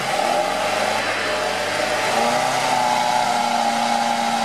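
A UAZ Patriot SUV's engine held at steady high revs under load, pulling a stuck vehicle out of mud on a tow strap. The pitch rises a little about two seconds in.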